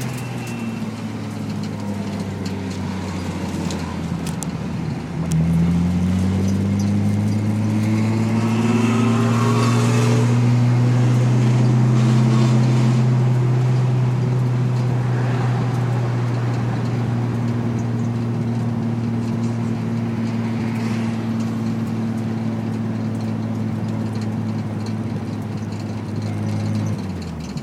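Nissan 300ZX's V6 running through a Specialty Z aftermarket exhaust, under way on track. The revs climb about five seconds in, hold steady for a long stretch, then drop near the end.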